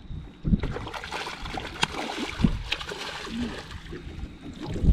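Water splashing, with several sharp splashes, as a hooked fish thrashes at the surface while it is being landed.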